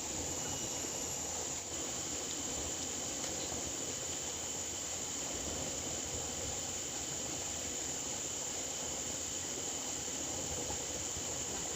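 Steady outdoor ambience: a constant high-pitched insect drone, such as crickets or cicadas, over an even hiss, with no change throughout.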